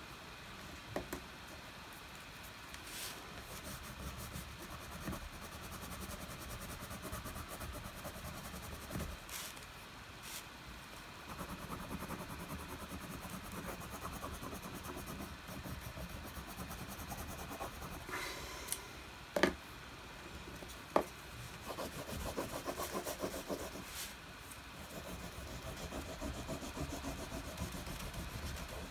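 Wax crayon rubbed back and forth on thick paper in rapid shading strokes, a soft scratchy rubbing. A few sharp clicks cut in, the loudest two about two-thirds of the way through.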